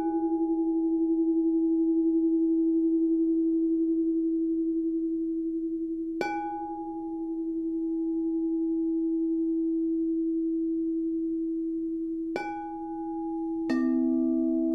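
Quartz crystal singing bowls ringing with a long, steady, slowly wavering tone. One bowl is struck about every six seconds to keep it sounding, and near the end a second, lower-pitched bowl is struck and joins it.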